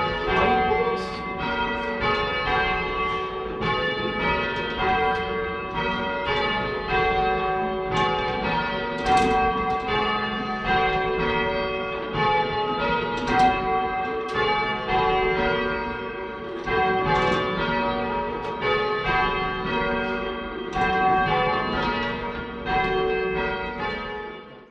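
Ring of three Taylor-cast church bells (1925) rung in a steady succession of overlapping strokes. The sound cuts off suddenly near the end.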